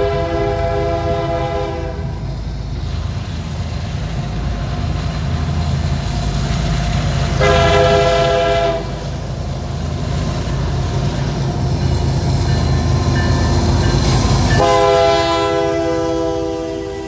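Union Pacific freight train's diesel locomotives approaching and passing close, the lead unit sounding its multi-chime air horn: one blast ending about two seconds in, a short blast in the middle and another starting near the end. Between blasts the low rumble of the engines and wheels grows louder as the locomotives go by.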